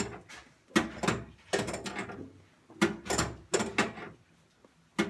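Irregular knocks and clunks, a dozen or so in a few seconds, of hands and tools working on plumbing fittings inside a sink cabinet while a connection is tightened.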